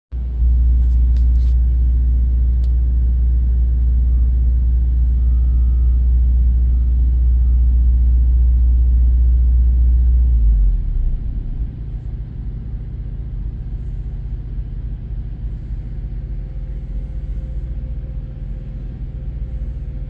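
Freightliner Cascadia semi-truck's diesel engine idling, heard inside the cab as a steady low rumble. About ten seconds in it drops noticeably quieter and carries on at the lower level.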